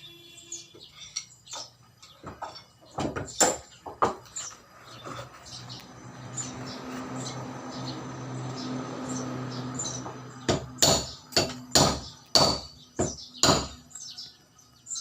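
Sharp knocks: two a few seconds in, then a run of about six roughly half a second apart near the end, with a steady humming noise between them. Birds chirp in the background.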